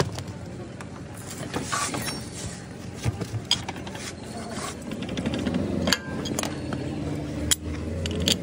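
Metal tools and parts clinking, knocking and scraping at a scooter's rear wheel hub and exhaust during removal of the rear wheel, in scattered sharp clicks. A low steady hum comes in about five seconds in.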